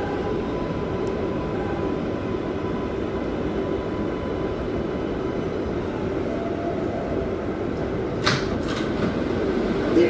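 Inside a New York City #7 subway car on the move: the car's steady rumble and rail noise, with one sharp clack about eight seconds in.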